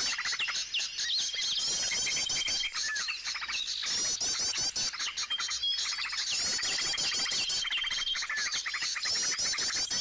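Many small birds chirping and calling together: fast twittering phrases that repeat every second or two, over a high, steady whistled note that comes and goes several times.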